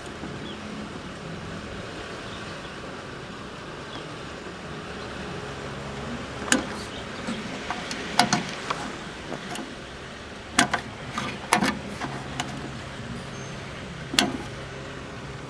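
Steady low hum from a Knight R/C capacitor tester running a leakage test, with several sharp clicks and knocks scattered through it.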